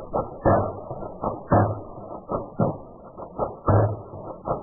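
Airsoft BB gun shots in a quick, irregular series of sharp pops, about three a second, some louder than others.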